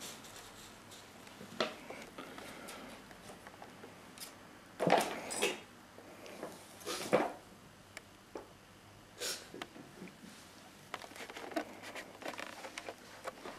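A kitten rustling and crinkling a paper gift bag as it paws at it and climbs inside. There are a few short bursts of rustling about five, seven and nine seconds in, then light crackly scratching near the end.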